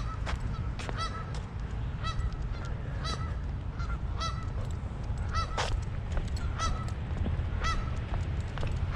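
Geese honking, many short calls repeated throughout, over a steady low rumble.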